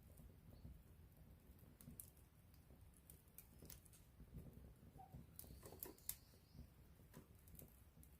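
Wood campfire crackling faintly: scattered small pops and snaps of burning wood over the low sound of the flames, with one sharper pop about six seconds in.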